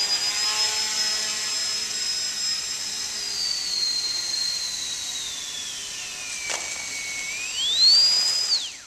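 RC foam plane's small electric motor and propeller whining at a high, steady pitch, then throttled back so the pitch slides down. A single sharp knock comes about two-thirds of the way through, then a short throttle burst raises the pitch again before the motor cuts off abruptly.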